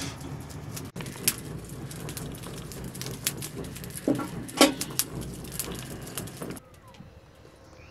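Charcoal burning in a metal grill box while being fanned: scattered crackles and a few sharp pops over a steady rushing noise. The sound drops away about six and a half seconds in.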